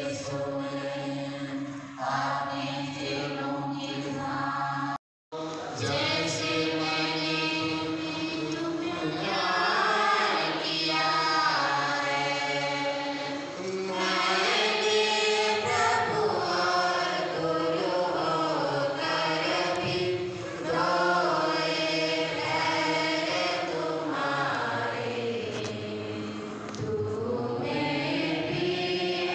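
A group of voices singing a hymn together, in long sustained sung phrases, broken by a momentary gap about five seconds in.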